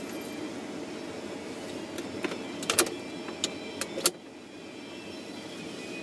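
Steady hum inside a Honda S2000's cabin, with a run of sharp clicks and knocks about two to four seconds in, the last one the loudest. After it the hum briefly drops a little.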